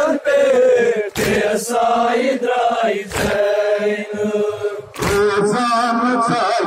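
Crowd of men chanting a nauha, a Shia lament, in unison. A sharp slap cuts through about every two seconds, the mourners beating their chests (matam) in time with the chant.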